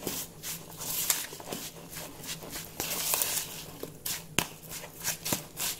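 Metal spoon stirring a mixture of chopped prawns and flour in a bowl, with irregular clicks and scrapes of the spoon against the bowl.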